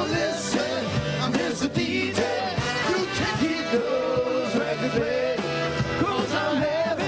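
Rock and roll song: a band playing with a steady beat and a singer's voice over it.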